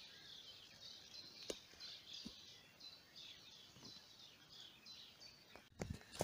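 Faint chirping of several small birds, short high calls overlapping one another; a short knock and rustle near the end.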